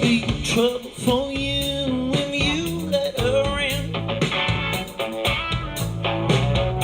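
Music played through a Bang & Olufsen Beosound Level wireless speaker: a slow, guitar-led blues-rock song with a sliding lead melody, between sung lines.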